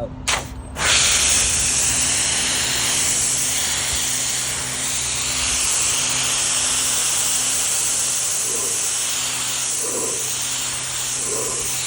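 Ryobi 40V brushless cordless pressure washer spraying in normal mode, without power boost. The water jet hisses steadily, with a low hum underneath. It starts with a short spurt, comes on fully about a second in, and cuts off suddenly at the end.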